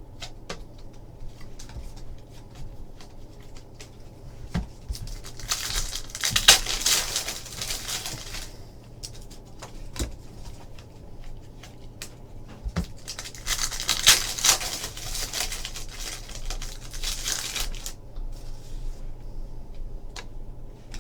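Trading card packs being handled: a foil pack wrapper torn open and crinkled in two longer noisy stretches, about six seconds in and again from about thirteen seconds, between light clicks and flicks of cards being sorted by hand.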